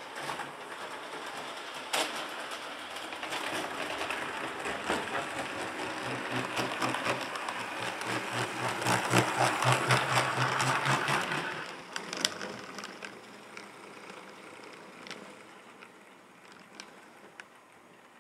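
Model train rolling along the track: small metal wheels click over the rail joints over a whirring motor and gears. The sound grows louder as the cars pass close by, then drops away sharply about two-thirds of the way through and fades.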